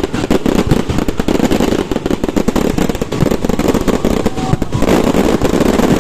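Firecrackers going off in a dense, rapid run of sharp pops and crackles that keeps up without a break.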